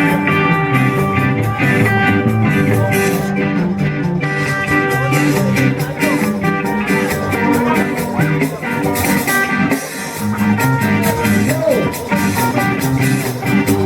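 Ska band music with guitar and a steady beat, an instrumental passage.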